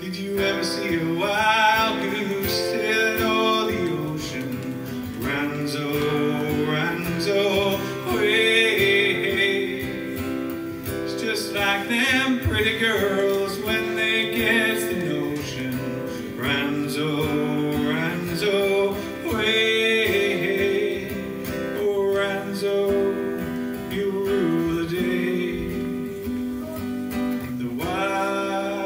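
A man singing a sea shanty with his own strummed acoustic guitar. Long held sung notes come back every few seconds over the steady strumming.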